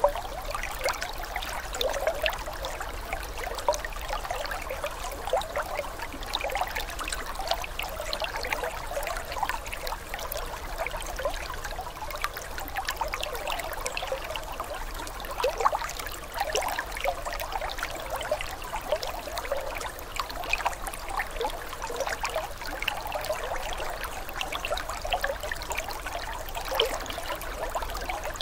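Aquarium water trickling and splashing where the filter's return stream breaks the surface: a steady, irregular patter of small splashes.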